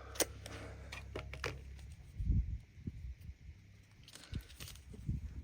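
Handling and movement noise: scattered light clicks and a few soft low thumps over a steady low rumble.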